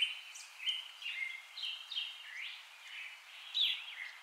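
Birds singing: a string of short chirps and whistled notes, a few a second, some sliding down and some rising.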